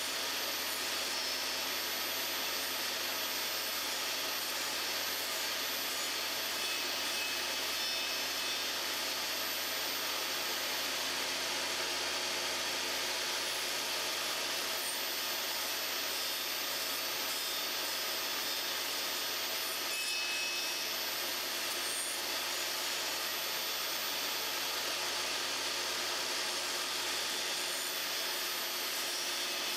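Table saw running steadily, its blade cutting into the edge of a plywood disc as the disc is turned round on a pivot jig.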